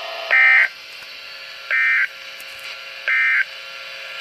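Emergency Alert System end-of-message signal: three short bursts of warbling digital data tone, each about a third of a second long and about a second and a half apart, over a faint steady hum. The bursts mark the end of the alert.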